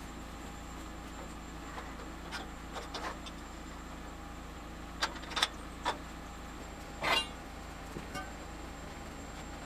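Homemade hydraulic log splitter running with a steady low hum, with a few sharp knocks and clanks of logs against its steel frame; the loudest is a short scraping knock about seven seconds in.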